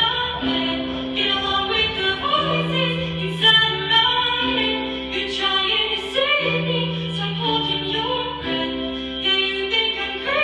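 Show choir singing with a female soloist over instrumental accompaniment, its low held notes stepping in a pattern that repeats about every two seconds.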